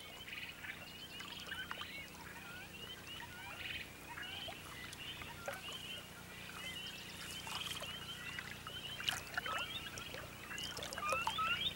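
Many faint, short bird chirps overlapping in a steady chorus of wetland birdsong.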